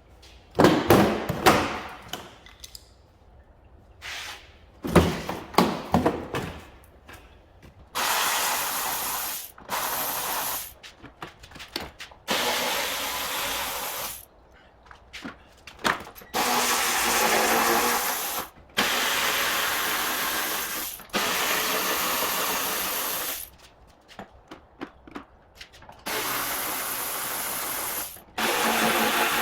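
A few sharp knocks and clatters of parts being handled, then a power drill running in repeated bursts of one to three seconds, about eight in all, as fasteners holding a car's front bumper are undone.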